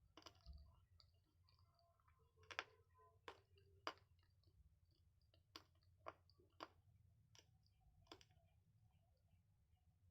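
Chewing guava: a series of short, sharp crunchy clicks at irregular intervals, about nine in all.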